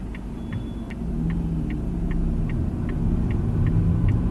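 A car's turn-signal indicator ticking steadily, about two and a half ticks a second, over the low rumble of the car's engine and road noise. The engine grows louder about a second in as the car moves off.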